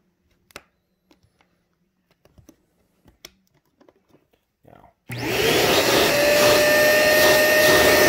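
A few faint clicks and taps of handling, then about five seconds in the Hoover Power Path carpet cleaner's suction motor switches on, spins up with a rising whine and runs loud and steady.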